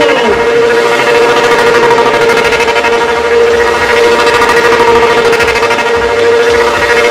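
Motorcycle engine held at steady high revs while the rider spins the bike around himself on wet asphalt in a stand-up circle stunt, the pitch dropping briefly at the start and then holding one high steady note.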